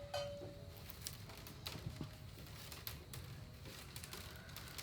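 Light, irregular clicks and ticks of split bamboo strips being handled and worked by hand.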